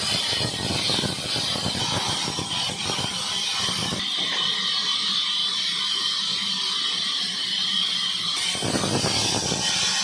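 Sawmill band saw cutting through a mango log: a steady high-pitched hiss and whine over a lower machine rumble. The rumble drops away abruptly about four seconds in and comes back near the end.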